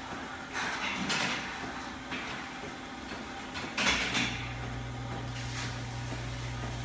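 Farm machinery at work: a few sharp clattering knocks, then a steady low mechanical hum that starts about four seconds in.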